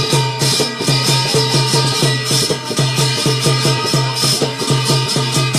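Instrumental Garhwali jagar music: a fast, even drumbeat with jingling percussion over it, and no singing.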